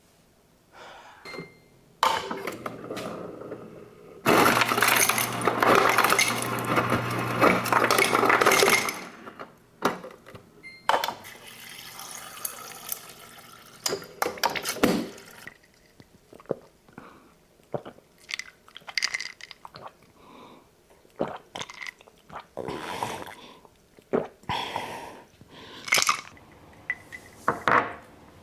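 Water running for several seconds, then again more briefly, followed by a scattered series of clinks, taps and knocks of glassware and other objects being handled.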